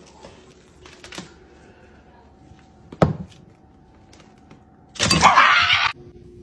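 Plastic cling wrap over a food bowl crinkling: a few faint clicks and a sharp tap about three seconds in, then a loud crinkling rustle lasting about a second near the end.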